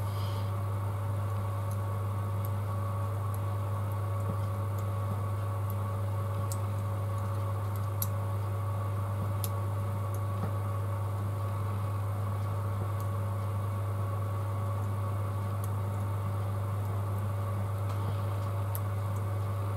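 Steady low hum with a few faint, scattered small clicks from tiny parts and tools being handled.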